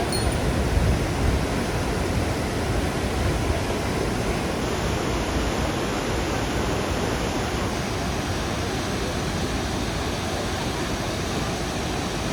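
A waterfall's steady rush of falling water, an even unbroken roar.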